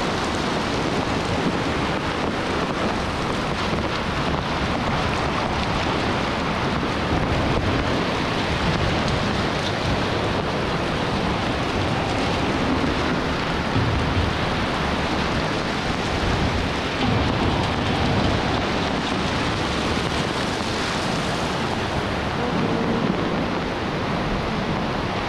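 Heavy rain falling steadily and splashing on wet paving, with a stream of rainwater gushing into an overflowing plastic drum.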